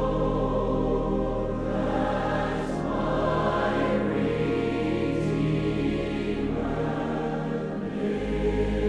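Choral music laid over the footage: a choir singing slow, held chords that change every couple of seconds.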